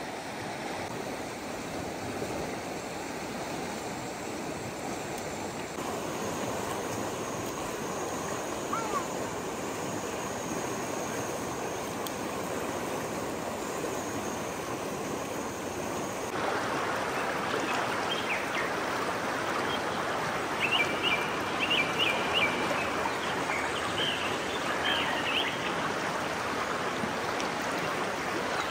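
Steady rush of flowing stream water. It changes abruptly about six seconds in and again past the middle, getting louder at the second change. Short high chirps sound over it in the later part.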